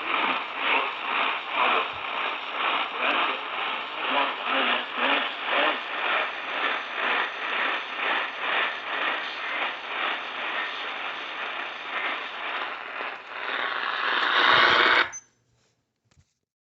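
Radio static and noise from a weak, hard-to-receive signal, pulsing regularly about three times a second. It cuts off abruptly near the end.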